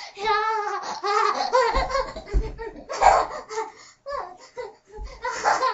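Child laughing in repeated bursts, with a few low thumps.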